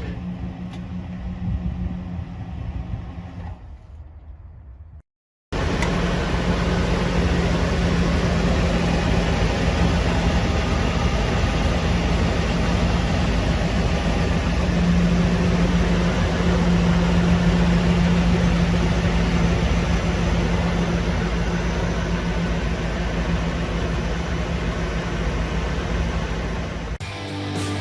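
Ford 6.8L V10 gasoline engine of a Class A motorhome running steadily. There is a brief cut about five seconds in, after which it comes back louder and keeps running evenly.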